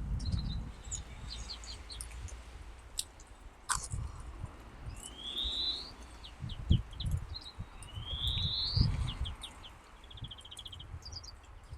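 Songbirds chirping and singing: scattered short high notes and quick trills, with two loud rising buzzy phrases, one about five seconds in and one near nine seconds. A low, uneven rumble runs underneath.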